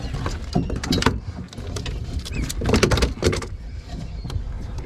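Irregular knocks and rattles as a freshly caught striped bass is handled and laid on a measuring board, over a steady low rumble.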